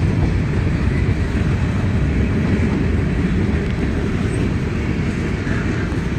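Freight train cars (covered hoppers and a tank car) rolling past close by: a steady rumble of steel wheels on the rails.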